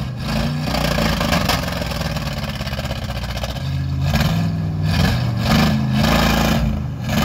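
Pickup truck engine revving up and down under load as the truck tries to pull free of deep mud.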